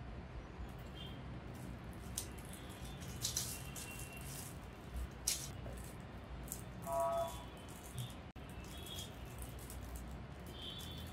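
Scattered light clicks and rattles of a boxed mechanical keyboard and its packaging being handled during unboxing, with a brief pitched tone about seven seconds in.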